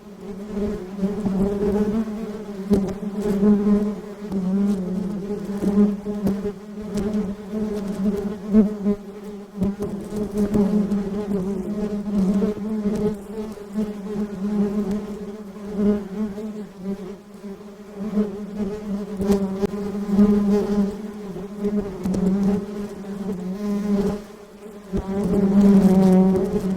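Honeybees buzzing in a continuous drone that swells and fades.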